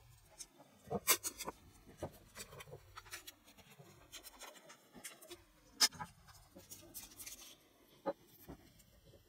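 Masking tape crinkling and peeling off small metal vice parts as they are handled, with scattered sharp clicks of the metal pieces; the loudest click comes about six seconds in.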